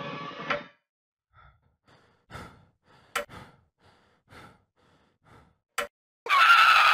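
Thriller trailer sound design: a pendulum clock ticks once more, then falls silent less than a second in, leaving near quiet with faint breaths and two sharp clicks. Near the end a loud, high pitched sound cuts in.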